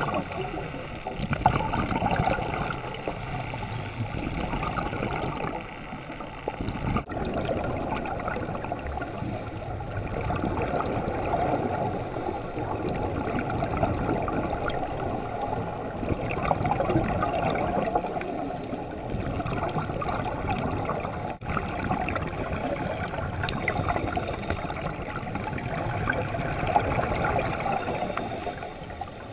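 Underwater recording of scuba bubbles and water gurgling and rushing past a camera housing, swelling and fading every few seconds. The sound breaks off abruptly for an instant twice.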